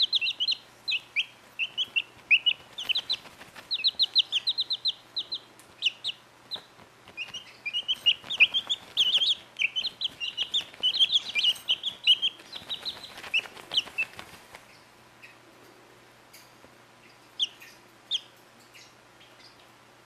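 Young chicks peeping, many short high calls in quick runs, with rustling of feathers and towel as they scratch, roll and flap in a dust-bath on a bath towel. The peeping thins to a few scattered calls about 15 seconds in.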